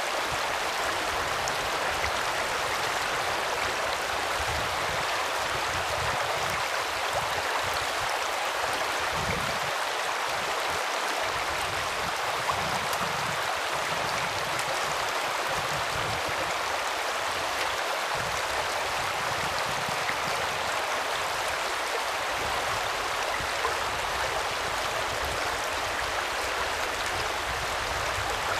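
Shallow stream water rushing steadily over a rocky riffle, a continuous even wash.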